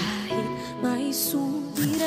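Soft background music with held notes that change every half second or so.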